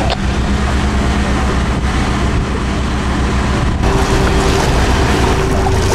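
Small workboat's engine running steadily, with wind noise on the microphone. A steady higher whine joins about four seconds in.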